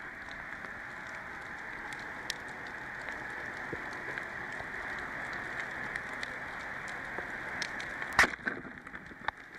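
Steady underwater rushing hiss with faint scattered clicks, then one sharp, loud crack about eight seconds in: a speargun being fired.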